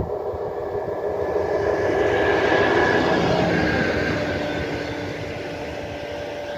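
V100 diesel locomotive hauling a railway crane wagon passing by: engine drone and rolling wheel noise, loudest about three seconds in and then fading as the train goes by. A high whine rides over it and drops slightly in pitch after the train passes.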